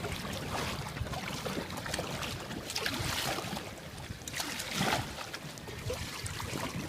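Water rushing and splashing along the hull of a sailboat under way, with louder swashes about three and five seconds in.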